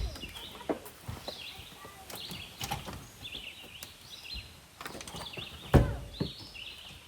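Small birds chirping repeatedly in short high calls, with several separate knocks and thumps. The loudest thump comes about six seconds in.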